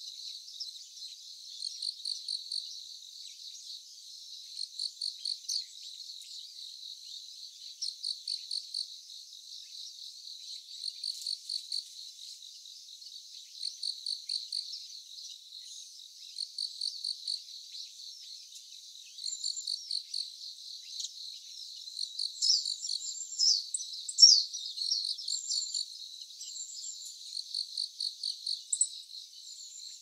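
Insect chirping in short, rapid pulsed trills that repeat every two to three seconds, over a faint steady insect hum. A few sharp, sliding calls cut in about three quarters of the way through and are the loudest sounds.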